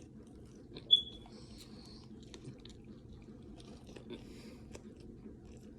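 Faint chewing and mouth sounds of a person eating, with scattered soft clicks and one short, sharp high-pitched squeak about a second in.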